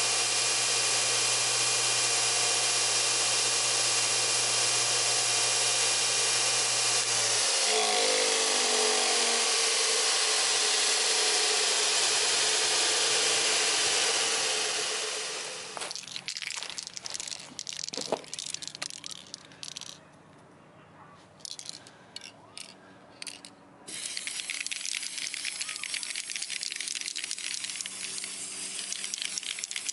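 Small bench belt grinder running with a steel axe head ground against the belt, then switched off after about seven seconds and winding down with a falling whine. Later come scattered clicks and knocks, then a steady hiss of spray paint from an aerosol can in the last few seconds.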